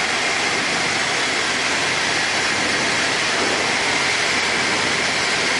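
Steady cockpit noise of a Tecnam P92 Eaglet light aircraft in flight: the engine and rushing air heard from inside the cabin, the engine throttled back to about 4,000 rpm for a descent.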